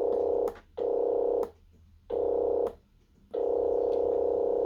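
Buzzy synthesizer tone from a breadboard sequencer circuit, played through a small speaker and holding one pitch. It switches on and off four times in notes of uneven length. It is not the intended sequence: the builder suspects a wiring mistake.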